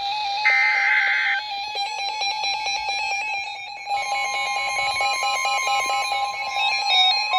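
Emergency Alert System tones. A short SAME data burst about half a second in. About four seconds in, a steady alert tone near 1 kHz starts over a pulsing beeping tone; these tones announce the next warning.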